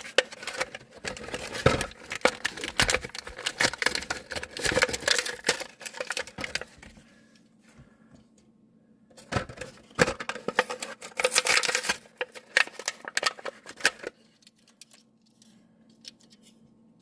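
A Hot Wheels blister pack being worked open, its plastic bubble firmly glued to the card: rapid crackling and clicking of stiff plastic and cardboard. It comes in two spells, a longer one and then a second after a short pause, and ends well before the end.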